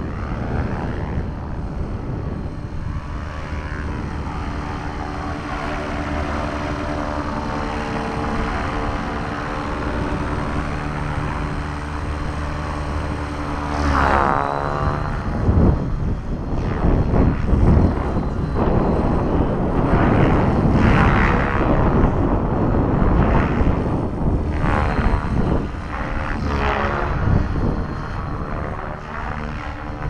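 Align T-Rex 600 electric RC helicopter flying overhead: the steady whine of its Scorpion brushless motor and rotor blades, in several even tones. About halfway through the pitch shifts, and from then on gusts of wind buffet the microphone, rising and falling over the helicopter.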